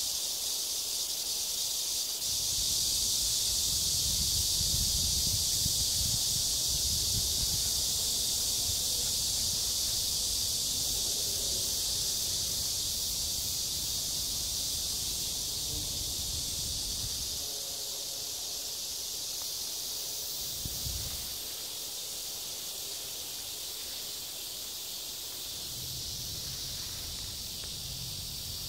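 Steady, high-pitched drone of summer insects buzzing in the garden, with a low rumble that comes in about two seconds in, fades around seventeen seconds, and returns briefly near twenty-one seconds.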